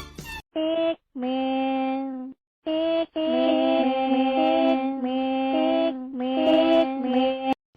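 Music: a simple tune of long, steady held notes with an electronic, synthetic sound. It comes in short phrases with brief breaks over the first few seconds, then runs on in a longer passage that stops just before the end.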